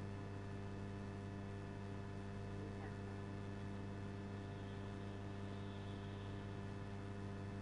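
Steady low electrical hum with evenly spaced overtones, unchanging throughout.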